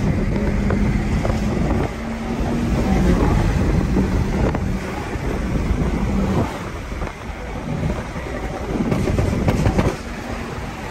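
Engine, road and wind noise inside a BMW's cabin at highway speed: a loud low rumble with a steady engine drone. It eases off about six and a half seconds in, rises again around nine seconds, and eases off once more near the end.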